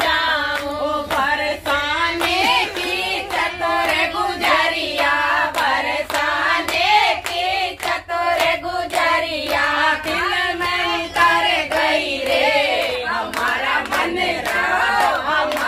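Several voices singing together, with hands clapping steadily in time.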